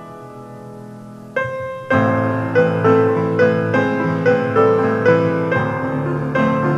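Piano accompaniment playing alone. A soft chord fades out, a new chord comes in about a second and a half in, and from two seconds on struck chords repeat about two to three times a second.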